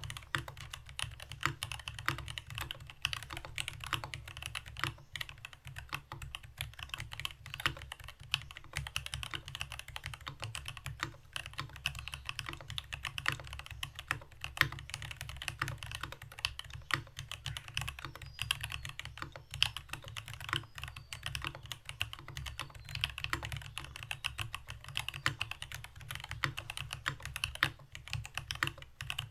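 Continuous steady typing on a mechanical keyboard: Rama Works U80-A with stock, unlubed NK Silk Black linear switches on a brass plate and GMK keycaps, a rapid irregular stream of keystroke clacks.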